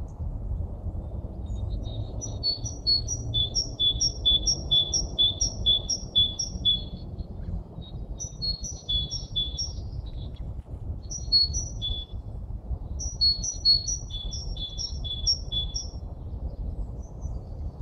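A small songbird singing: three bouts of a high two-note phrase repeated quickly, about two phrases a second, with short pauses between bouts. A steady low rumble runs underneath.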